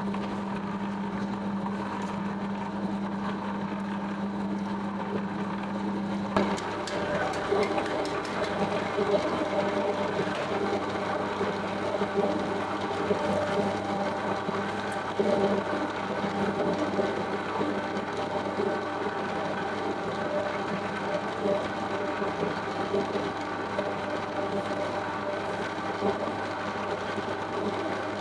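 Electric dough mixer running, its hook churning flour and liquid in the steel bowl: a steady mechanical whir with a low hum that drops away about six seconds in. After that come irregular clatter and sharp knocks from the mixing and from flour being scooped into the bowl.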